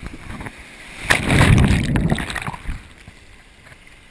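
Ocean wave breaking and washing over a camera held in the surf: a loud rush of churning water starting about a second in and dying away about two and a half seconds in, leaving a quieter wash of surf.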